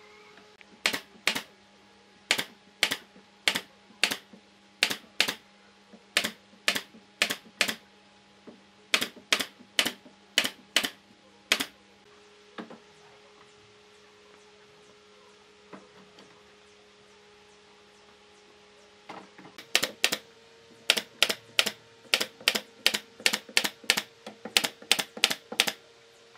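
Pipe clamps being adjusted and tightened on a glued pine frame: sharp clicks, mostly in pairs at about two a second, then a quiet stretch with only a few single clicks, then a quicker run of clicks over the last six seconds or so.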